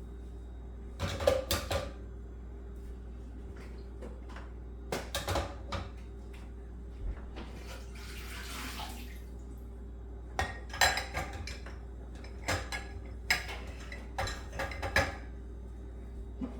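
Cups being set down one at a time, face down, in a dishwasher's top rack: scattered clinks and clatters in small clusters every second or few seconds.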